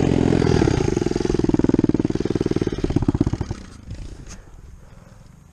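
Big-bore Kawasaki KLX110 (KLX143) pit bike's single-cylinder four-stroke engine running with a fast, even pulsing, its exhaust just snapped in half. About three and a half seconds in the engine sound drops away, leaving only a few faint ticks.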